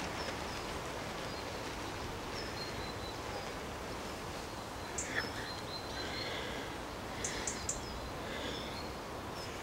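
Steady outdoor background noise with faint, scattered high bird chirps, and a few short sharp clicks around the middle.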